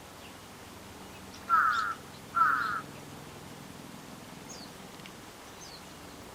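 Little egret giving two harsh, croaking calls about a second apart, each under half a second long. Faint high chirps of small birds follow.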